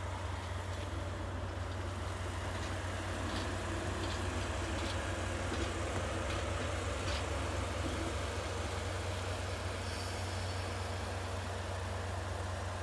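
Train hauled by a DE10 diesel-hydraulic locomotive passing slowly, with a steady low diesel drone. A few faint clicks come midway.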